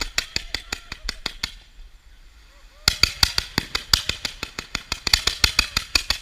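Large consumer firework going off in rapid runs of sharp pops, about eight a second; the popping stops for about a second and a half shortly after it starts, then resumes.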